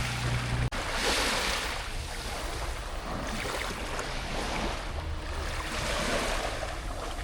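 Sea waves washing ashore, swelling and easing every couple of seconds.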